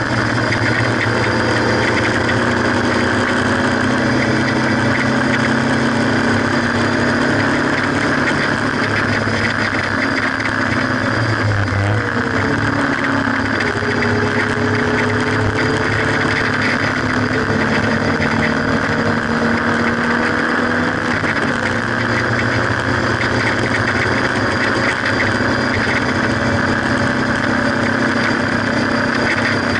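Haynes Roadster kit car's 1800 engine running under load at track speed, heard onboard the open car through heavy wind noise. The engine note holds fairly steady with slow pitch drifts, dipping and climbing again about twelve seconds in, with another shift a little past twenty seconds.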